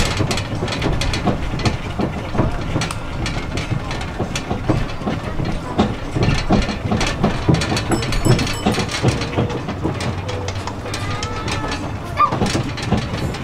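Riding aboard a rubber-tyred DOTTO road train: a steady low running rumble with constant rattling and knocking from the carriages. A brief higher-pitched sound comes near the end.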